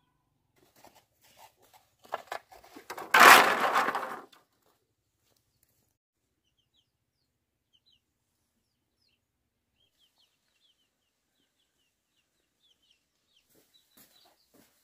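Chickens: a few short clucks, then a loud, harsh squawk about three seconds in lasting about a second, followed by faint, short high chirps.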